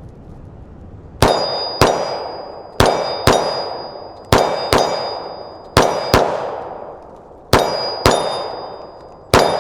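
Glock 43X 9mm pistol fired in quick pairs, two shots about half a second apart and a new pair every second and a half or so, with steel target plates ringing after the hits. There are five pairs, and a sixth begins near the end.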